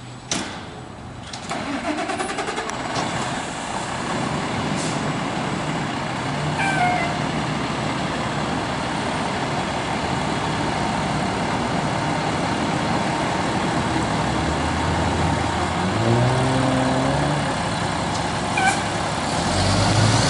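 Fire engine's diesel engine running steadily, revving up in rising pulls near the end as the truck moves off. A sharp burst about a third of a second in.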